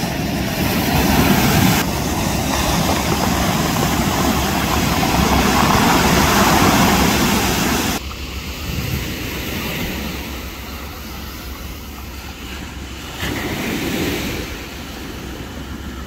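Sea waves breaking and surf rushing, a steady loud rushing noise with a low rumble beneath. It drops abruptly about halfway through, then swells again near the end.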